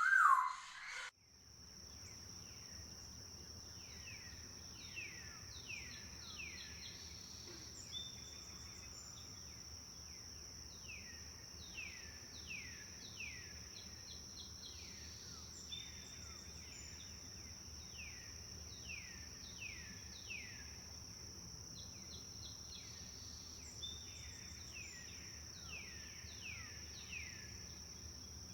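Tropical forest ambience: a loud whistled bird call at the very start, then runs of quick downward-sliding bird calls repeated again and again over a steady high-pitched insect drone and a low background hiss.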